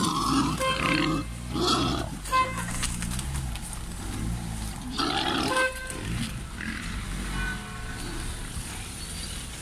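Wild boars grunting and squealing, in rough bursts near the start, about a second and a half in and again around five seconds in.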